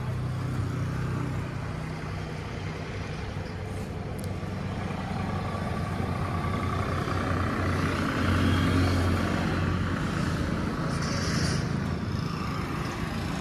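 An engine running steadily at idle: a low, even hum that grows a little louder around the middle.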